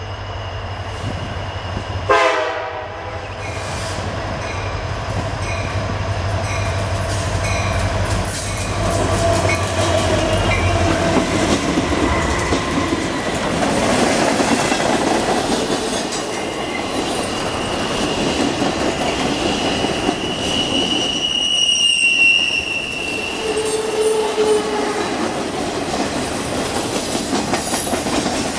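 CSX freight train passing close by: the diesel locomotives' engines hum low as they approach and go by, then the freight cars rumble and clatter past on the rails. There is a brief loud sound about two seconds in, and a short high wheel squeal about three-quarters of the way through.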